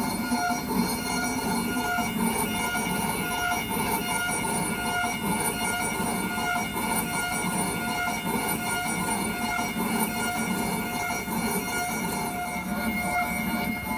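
Cerec MC X dental milling machine milling a crown from a tooth block, its burs spinning under a water spray. The sound is a steady machine whine with a few constant tones over a continuous hiss.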